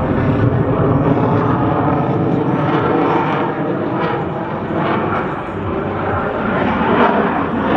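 Loud jet noise from the F-22 Raptor's two F119 turbofan engines during a low demonstration pass, a dense steady rush that eases slightly midway and swells again near the end.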